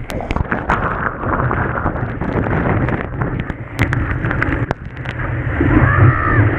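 Wind buffeting the microphone over rushing surf, a steady muffled rumble with scattered knocks.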